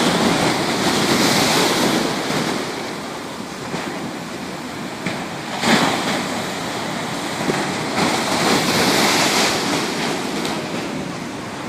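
Rough sea waves surging and breaking in stormy weather, rising and falling in waves of noise, with one sharp splash a little past halfway; wind buffets the microphone.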